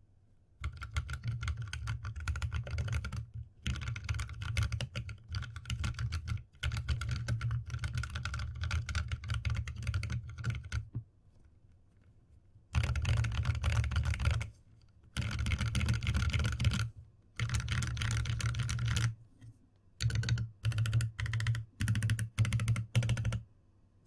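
Fast typing on a Reviung41 mechanical keyboard with tactile key switches. The keystrokes come in dense runs of a few seconds, broken by short pauses, with a longer pause about halfway and several shorter bursts near the end.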